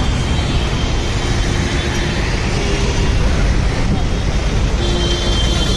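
Street noise of a rally moving along a road: a steady traffic rumble with crowd voices mixed in. A few short steady tones sound around the middle and again near the end.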